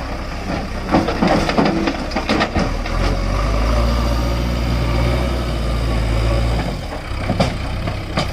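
Heavy diesel engine running, with a run of clanks and knocks in the first few seconds. The engine then settles into a louder, deeper steady rumble for several seconds before easing off, with a single knock near the end.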